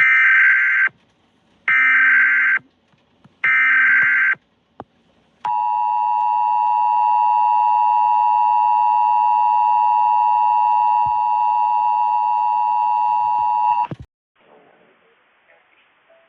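Emergency Alert System broadcast tones: three short buzzy data bursts of the digital header, then the two-tone attention signal, a steady dual tone held about eight seconds that cuts off suddenly.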